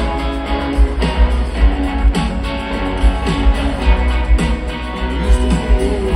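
Rock band playing live through a stadium PA: strummed and picked electric guitars over a steady kick drum, with no vocals yet, recorded from the crowd.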